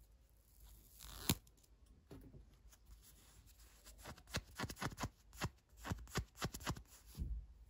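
Fingers handling a plush toy: a sharp click about a second in, then a run of short scratchy strokes as a fingertip rubs back and forth over its glittery fabric heart patch, where a paper sticker has just been peeled off.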